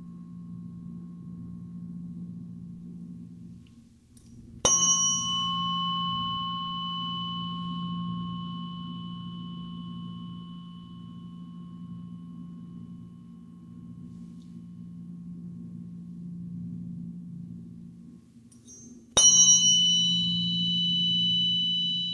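Solfeggio tuning fork struck twice, about fifteen seconds apart. Each strike is a sharp metallic tap followed by a long, pure ringing tone with higher overtones that slowly fades. The ringing of an earlier strike is still dying away at the start, and a steady low hum runs underneath.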